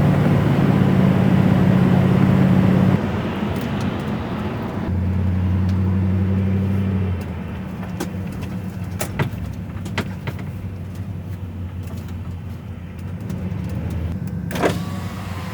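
Vehicle engine running, heard from inside the cabin, with its low hum shifting pitch a few times. A few light clicks come midway, and a short loud rush comes near the end.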